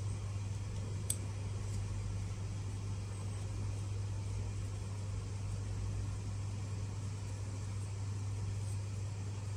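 Steady low background hum with faint hiss, and a single light click about a second in.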